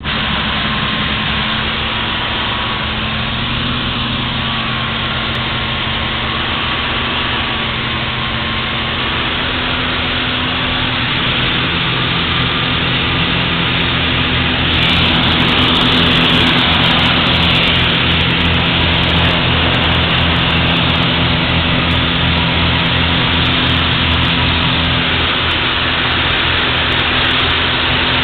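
Light aircraft's engine drone heard from inside the cabin, steady and throbbing, growing louder about halfway through.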